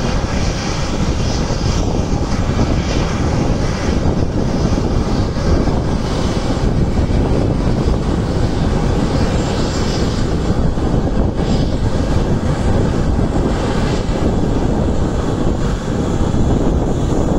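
Boeing 737-700's CFM56-7B jet engines running with a loud, steady rumbling roar.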